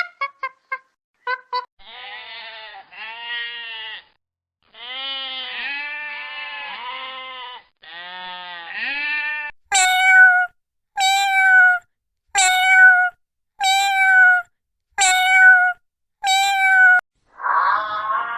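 Domestic animals calling, cut together from separate recordings: a few short quick notes, then several drawn-out calls that rise and fall in pitch, then six evenly spaced calls of about a second each, in the manner of goat bleats.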